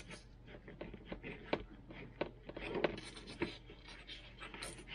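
A plastic wire nut being twisted by hand onto a bundle of stranded wire ends: an irregular run of small scratchy clicks and scrapes.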